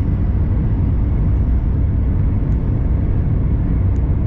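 Steady deep rumble and hiss inside the cabin of an Airbus A350-1000 climbing out after takeoff, its Rolls-Royce Trent XWB-97 engines at climb power, heard from a window seat over the wing.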